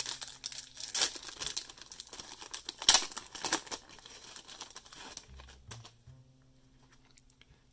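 The wrapper of a 1989-90 NBA Hoops wax pack crinkling and tearing as the pack is opened, with cards being handled. There is a dense run of sharp crackles, loudest about three seconds in, that dies away after about five seconds.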